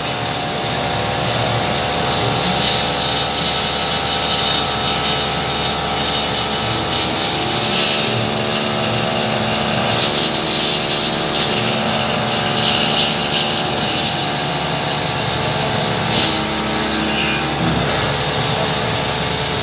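Homemade CNC milling machine cutting a plate with a small end mill under flood coolant: the spindle and cut make a steady whine of several fixed tones over a constant hiss of cutting and spraying coolant.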